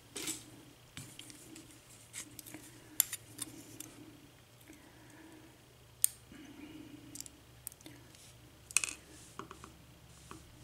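Scattered small metallic clicks and taps from the top pins and springs of a disassembled Abus Series 2 8345 padlock being handled and taken out one by one, over a faint steady hum.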